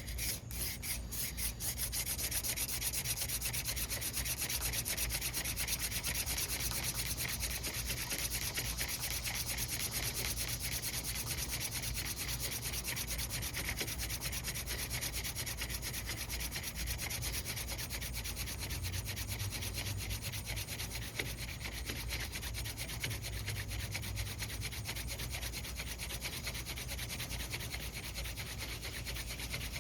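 Mullein hand-drill spindle spun back and forth with thumb loops, grinding into a pine hearth board with a steady, fast rubbing hiss as it builds up hot wood dust toward an ember.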